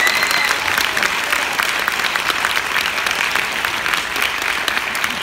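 Audience applauding at the end of a string quartet performance: a dense, steady patter of hand claps.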